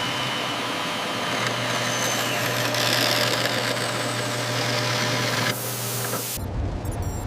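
Industrial machine running: a steady mechanical noise over a low hum, with thin steady tones, changing abruptly near the end.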